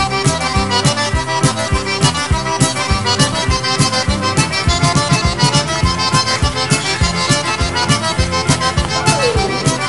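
Background music with a steady, quick beat; an accordion carries the tune.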